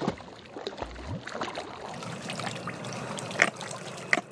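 Shallow water splashing and sloshing as a big jack crevalle thrashes at the bank while being landed, with a few sharp knocks.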